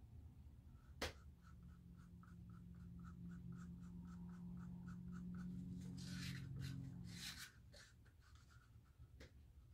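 Wooden craft stick scraping and tapping at a plastic sink strainer full of acrylic paint, faint and scratchy, with a sharp click about a second in and louder rasps near the middle. Under it runs a low steady hum with light regular ticks, about four a second, for several seconds.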